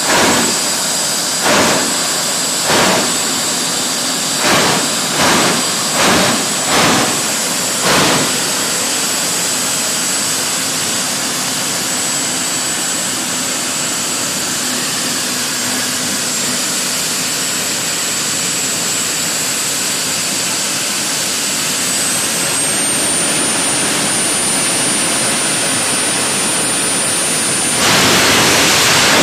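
Jet dragster's turbine engine running at the start line with a steady high whine, the afterburner fired in eight short blasts over the first eight seconds. About 22 seconds in the whine rises as the engine spools up, and near the end the afterburner lights fully in a continuous, louder blast for the launch.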